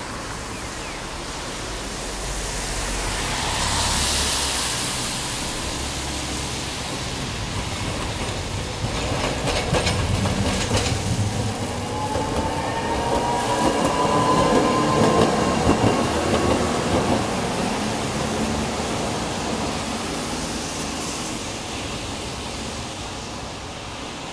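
A Hakodate City streetcar, tram 3004, running along street track. A car hisses past a few seconds in. The tram's wheels then clatter over the rail joints, and a thin whine rises in pitch for several seconds as it passes at its loudest, before it fades away.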